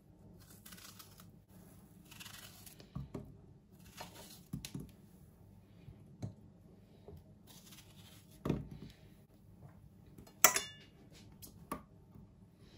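Metal cutlery on a ceramic plate as strawberries are cut and mashed with a fork: faint scattered taps and scrapes, a duller knock about eight seconds in and one sharp ringing clink about ten seconds in.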